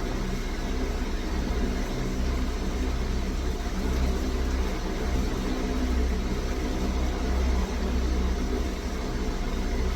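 Steady low droning hum of a running engine or motor, unchanged throughout.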